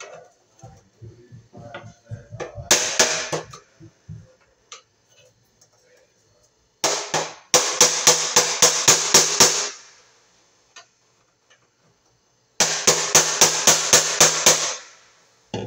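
Pliers used as a hammer on a screwdriver handle, driving the screwdriver against the sheet-metal housing of an electric baseboard heater: rapid metallic strikes with a ringing clang, in three runs, a short one about three seconds in and two longer ones of about ten strikes each, at roughly four or five a second.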